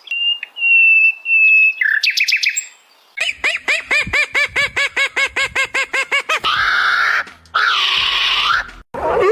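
A series of bird calls: first three steady high whistles, then a fast run of repeated chirps about five a second, then two harsh scratchy squawks.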